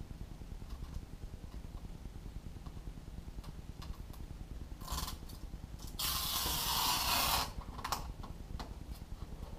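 A cut strip of the wing's carbon-weave skin being peeled up off the foam core: a rasping tear about a second and a half long a little past halfway, after a brief scrape, with a few light clicks afterwards.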